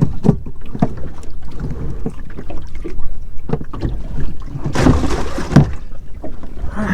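A fishing boat moving slowly on the water: a steady low motor rumble with wind buffeting the microphone, scattered light knocks, and a louder gust about five seconds in.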